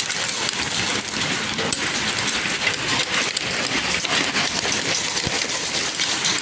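Hail falling: a steady, dense patter of countless small hard impacts.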